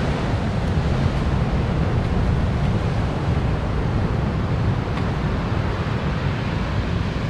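Steady rush of sea breeze and surf on the beach, with wind rumbling on the microphone. A faint tap sounds about five seconds in.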